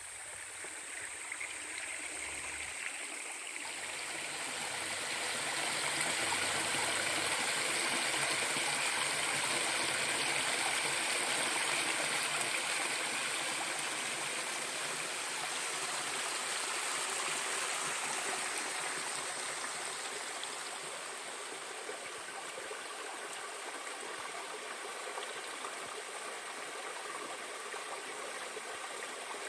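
Clear mountain stream rushing over rocks, a steady wash of water that grows louder a few seconds in and eases off again after about twenty seconds. A thin, steady high-pitched tone sits above it throughout.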